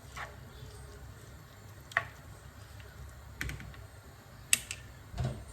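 A few scattered light clicks and knocks, the sharpest about two seconds in and again past four seconds, with a duller thump near the end, over a steady low hum.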